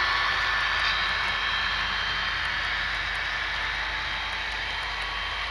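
HO scale model freight cars rolling past on the track: a steady whir of small metal wheels on rail with a few faint high tones, slowly fading as the train moves away.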